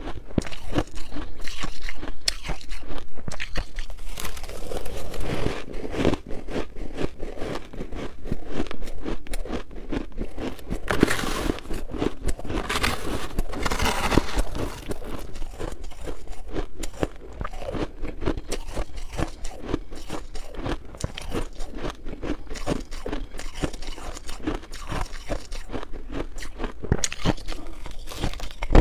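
Close-miked crunching and chewing of shaved ice, a dense run of small quick crackles, with a spoon scooping and scraping through the shaved ice in a glass dish around the middle.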